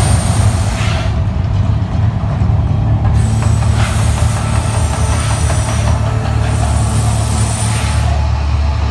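Mirage volcano show eruption effects: a deep steady rumble under loud hissing blasts. One blast dies away about a second in, another runs from about three to six seconds in, and a shorter one comes at about six and a half seconds.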